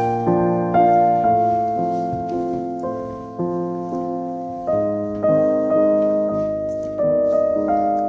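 Background piano music: gentle chords, with new notes struck about every half second, each fading before the next.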